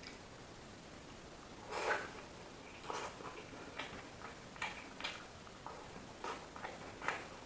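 Close-up mouth sounds of a person eating: irregular wet smacks and clicks of chewing, one louder smack about two seconds in.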